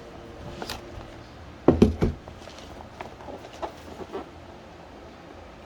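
Cardboard sneaker box being handled and opened: a quick cluster of three sharp knocks about two seconds in, with lighter taps and clicks around it.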